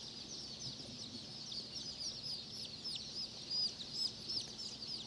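Wheaten Standard Old English Game Fowl chicks peeping without a break, many short high peeps overlapping, most of them falling in pitch.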